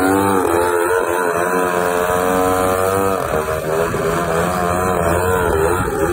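RC aerobatic plane's motor and propeller running hard while the plane hovers and manoeuvres. Its pitch swings up and down again and again.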